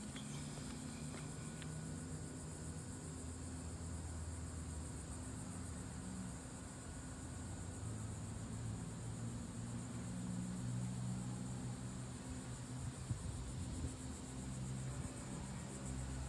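Insects chirping in a steady, high-pitched, fast-pulsing chorus, over a low hum.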